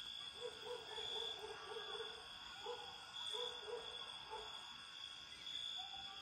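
Night ambience of a chorus of insects keeping up a steady high trill, with a run of short, repeated lower-pitched animal calls coming in bouts.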